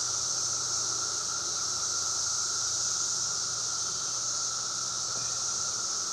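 Chorus of periodical cicadas (17-year Brood XIII) calling all at once: a steady, real loud high-pitched hiss with a lower droning tone beneath it, unbroken throughout.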